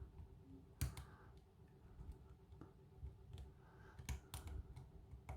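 Faint, irregular small clicks of a lock pick working the pins of a kik lock cylinder held under tension, probing pin by pin for the one giving counter-rotation.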